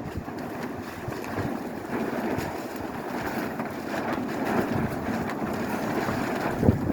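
Blue plastic tarps flapping and rattling in strong blizzard wind, with wind buffeting the microphone; one louder snap of the tarp near the end.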